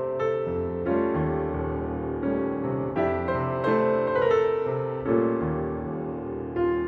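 Slow, gentle piano music: sustained chords with a melody, new notes struck every half second or so.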